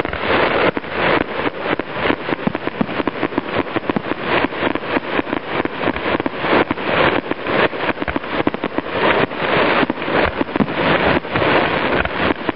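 Fireworks display: aerial shells bursting and crackling in a dense, continuous run of bangs and pops, many each second.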